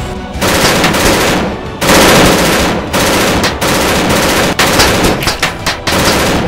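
Sound-effect battle gunfire: repeated bursts of rapid machine-gun fire, the shots coming as quick close-set cracks in the second half.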